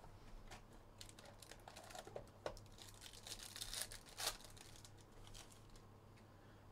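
Foil trading-card pack wrapper crinkling and tearing as it is ripped open by hand, with light rustles and clicks. The crackling is thickest about three to four seconds in, then settles.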